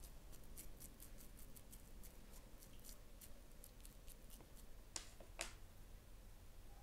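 Quiet handling of minced meat being pressed onto a flat metal skewer: faint scattered ticks, then two sharper clicks about five seconds in.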